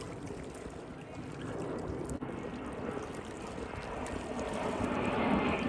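Jet engines of a large twin-engine aircraft flying overhead, a rushing noise that grows steadily louder as it approaches.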